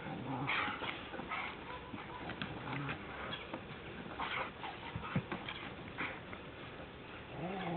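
Two Rottweilers wrestling in play, with short, irregular growls and snuffling breaths as they mouth at each other.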